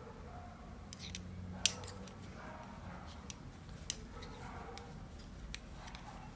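Metal knitting needles clicking against each other while knitting, a scattering of sharp irregular clicks, the loudest about a second and a half in and another near four seconds.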